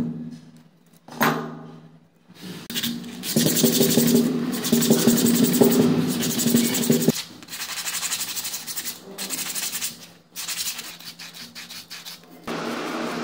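Sandpaper wrapped around a small rusty steel shaft, rubbed back and forth by hand in quick strokes to clean off rust. It starts a couple of seconds in, after a single metal clink, and is loudest in the middle.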